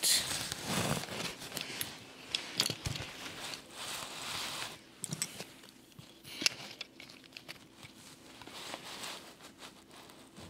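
Close handling noise from hands on LEGO pieces and a handheld camera: irregular rustling and swishing with scattered light plastic clicks and knocks. The sharpest click comes about six and a half seconds in.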